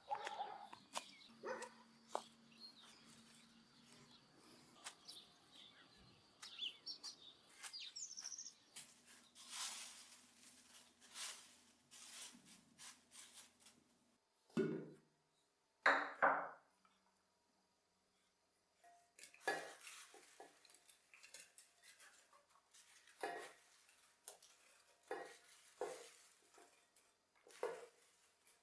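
Dishes and cutlery clinking and knocking as they are handled, in scattered short taps. Two louder sounds come about halfway through; the second falls in pitch.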